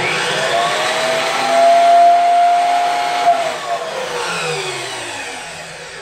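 Chicago Electric 14-inch abrasive cut-off saw with a 15-amp motor, run free with no cut. Its whine climbs to full speed in the first second and holds. About three seconds in the trigger is released and the blade winds down with a falling whine.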